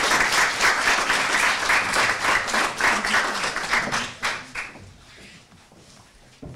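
Audience applause: many people clapping at once, dying away about four and a half seconds in.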